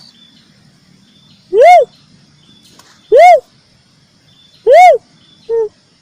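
Cuckoo-dove (uncal) calling: three loud whooping coos, each rising then falling in pitch, about one and a half seconds apart, with a short, quieter, lower note after the third.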